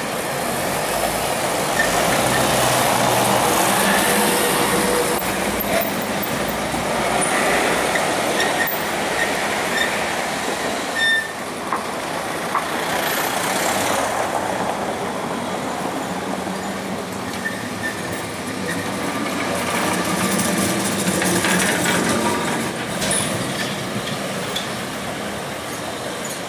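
A vintage Lisbon electric tram, a Carris Remodelado two-axle car, running on street track among road traffic: steady rumble of steel wheels on the rails mixed with passing cars and vans, with a few short high squeals from the wheels.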